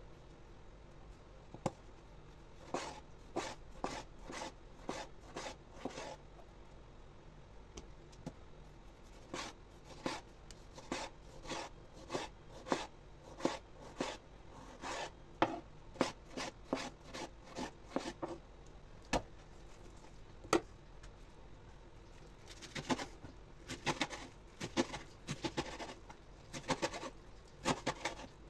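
Chef's knife slicing through tomatoes, then spinach, and tapping on a wooden cutting board: separate knife strokes in runs with short pauses, coming faster near the end.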